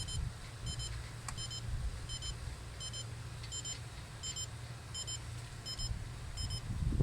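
Car warning chime beeping in short double beeps, about three pairs every two seconds, over a low steady hum.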